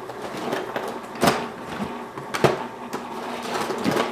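Someone rummaging through a drawer or box of small household items: clattering and shuffling, with two sharp knocks about a second apart.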